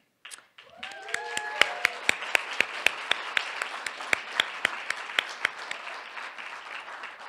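An audience applauding, with louder, evenly paced claps at about four a second close to the microphone from the speaker at the podium, and a brief cheer about a second in. The close claps stop about five seconds in and the applause tapers off near the end.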